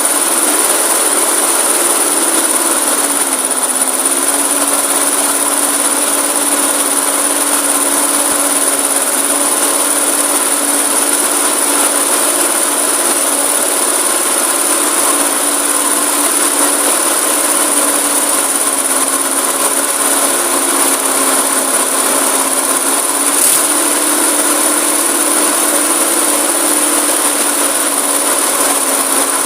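Briggs & Stratton lawn mower engine running steadily at speed; its pitch drops slightly about three seconds in and then holds, as its RPMs, which were a bit too high, are set lower at the throttle linkage.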